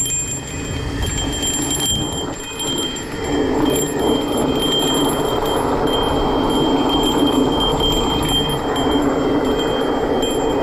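Mountain bike rolling down a dirt fire road: tyre rumble and wind noise that grow louder about three seconds in as it picks up speed. A thin, steady high-pitched ringing runs over it.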